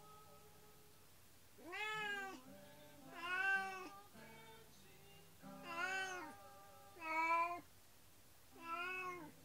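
Domestic cat meowing over and over: five long, drawn-out calls, each rising and then falling in pitch, roughly one every one and a half seconds. It is the plaintive crying of a cat left alone at home, which the owners take for worry over its companion cat taken away for surgery.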